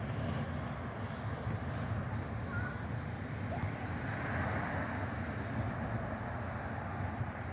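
Steady low outdoor background rumble, even throughout, with no single event standing out.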